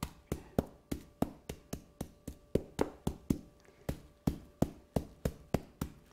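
Metal meat mallet pounding chicken breasts under plastic wrap on a plastic cutting board, in steady strikes about three a second, flattening the meat to about a quarter inch thick.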